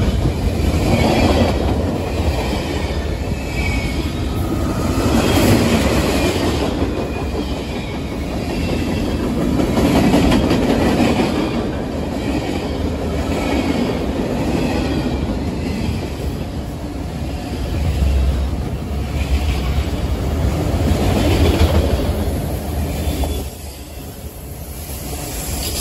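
Union Pacific freight train's cars rolling past at speed: a continuous low rumble and clatter of wheels on rail, with wheel squeal rising and fading at times. The level drops briefly near the end, then picks up again.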